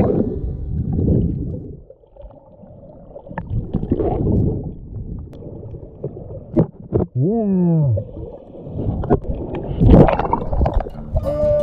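Muffled underwater water sounds as a snorkeler swims with an action camera: low sloshing and gurgling with scattered knocks and clicks. A short tone falls in pitch about seven seconds in, and a loud splash comes near ten seconds as the camera breaks the surface.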